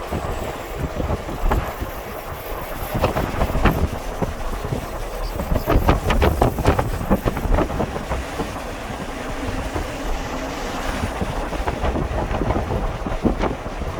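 Wind gusting across the microphone with a heavy buffeting rumble. A quick run of rattling clicks comes through the gusts about halfway through.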